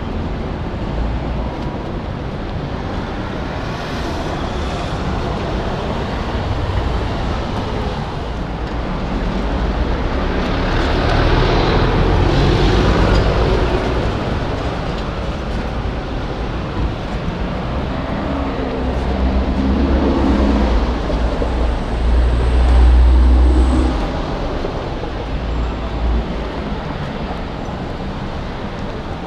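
Busy city street noise: traffic running steadily with a low rumble, swelling louder twice, about ten seconds in and again about twenty seconds in.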